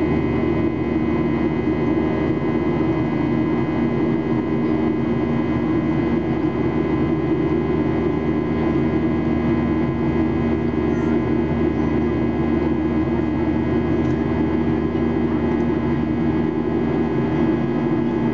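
Steady cabin drone of a Boeing 737-800 in flight, heard from a window seat by the wing. Its CFM56-7B jet engines and the rushing airflow make a low, even roar with several steady tones over it.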